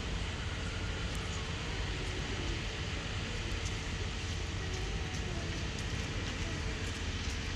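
Steady outdoor background noise: a low rumble and hiss with a faint steady hum, and no distinct events.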